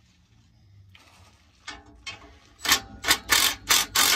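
Cordless impact tool hammering on an exhaust header collector bolt, driven in a quick run of short trigger bursts that starts about two and a half seconds in, after a couple of faint clicks from the socket being fitted.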